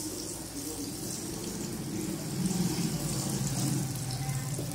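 Oil sizzling steadily as besan-coated fish fries in a pan, a continuous hiss. A low rumble grows louder about halfway through.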